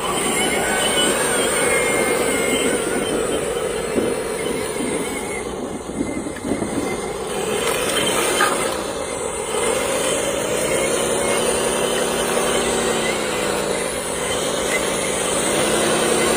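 A toy vehicle's small electric motor and gears whining, with rattling in the first half; the whine's pitch dips and rises again twice in the second half as the motor slows and speeds up.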